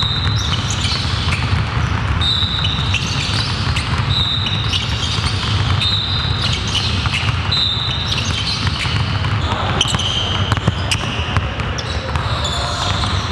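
Several basketballs being dribbled on a hardwood gym floor, under a steady low rumble. Short high-pitched squeaks recur about every two seconds.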